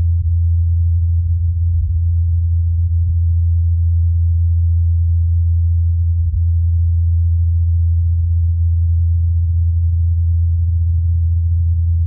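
Ingenuity Mars helicopter's rotors, recorded on Mars by the Perseverance rover's SuperCam microphone and filtered to isolate the helicopter: a steady, very low hum from the spinning blades.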